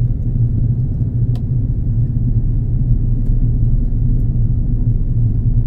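Airbus A330 cabin noise: a steady low rumble of engines and airflow heard from inside the passenger cabin, with a couple of faint clicks.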